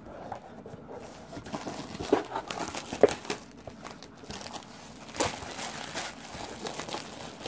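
Old, brittle shrink wrap being torn and peeled off a cardboard game box, crinkling and crackling irregularly, with a few sharper snaps about two, three and five seconds in.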